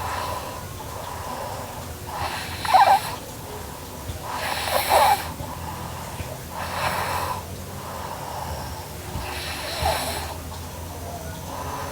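A sleeping girl snoring: four snoring breaths about two to two and a half seconds apart, the first two the loudest.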